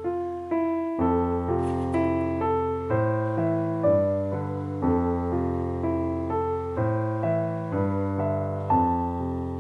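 Soft, slow instrumental background music: a gentle melody of struck notes that ring and fade, over held bass notes.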